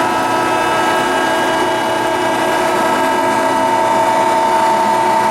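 Marvel V10A2 vertical band saw running, a steady mechanical whine made of several fixed tones with a high hum on top.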